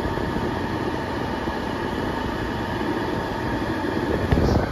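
Jeep Liberty's heater blower running steadily, air rushing out of the dashboard vents with a faint steady whine.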